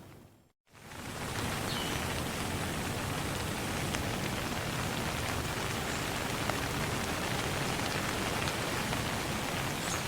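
Steady rain falling, an even hiss of drops. It fades in after a brief dropout to silence about half a second in.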